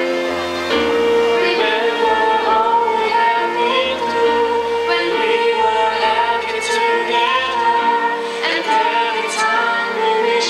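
Slow ballad-style music: a woman singing over sustained chords and held bass notes.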